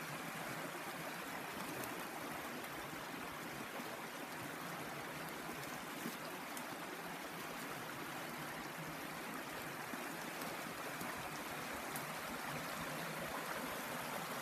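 Shallow, rocky woodland creek running clear over stones: a steady, even rush of flowing water.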